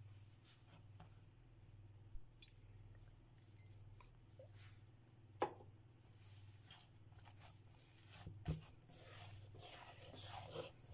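Faint handling sounds of hands pressing and then kneading a soft risen dough in a stainless steel bowl, with a few soft knocks and a low steady hum underneath; the rustling gets busier near the end as the kneading starts.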